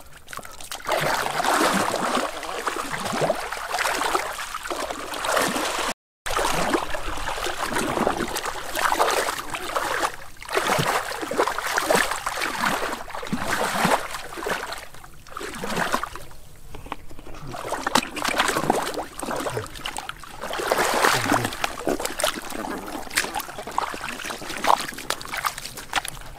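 Shallow muddy pond water splashing and sloshing in irregular surges as someone wades through it and grabs fish by hand, with a short break in the sound about six seconds in.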